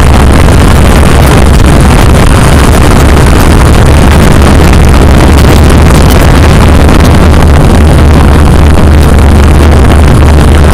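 Quadcopter drone's propellers and motors running steadily: a loud, unbroken hum with hiss, picked up close by the on-board camera's microphone.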